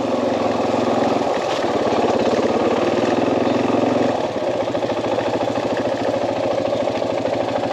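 KTM 500 dirt bike's single-cylinder four-stroke engine running steadily under way, then easing off to a slow, pulsing idle about four seconds in as the bike pulls up.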